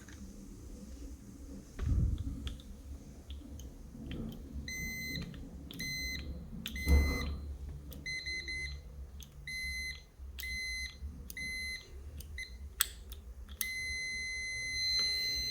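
Multimeter continuity beeper sounding on the push-button switch: a high beep that comes in short on-off pulses as the switch contacts close and open, with a few sharp clicks, then holds as one steady tone near the end, showing the switch still makes contact.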